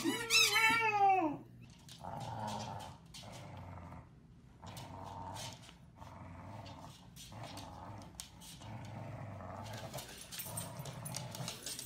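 Two dogs growling playfully in repeated rough bouts, each about a second long, while tugging a rope toy between them. A brief high, sliding squeal comes just before the growling starts.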